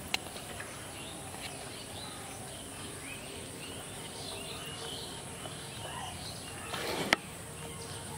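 Open-country ambience: birds chirping and a steady high insect drone over a light background hiss, with one sharp click about seven seconds in.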